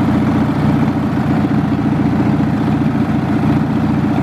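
Craftsman LT1000 riding lawn mower engine running steadily just after a cold start, on partial choke as it warms up.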